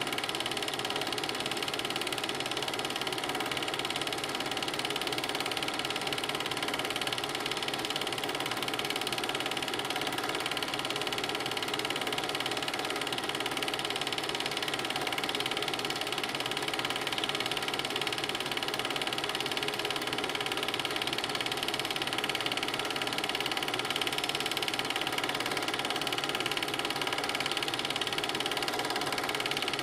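Film projector running: a steady mechanical whirr with a fast, even clatter and no change in pitch or loudness.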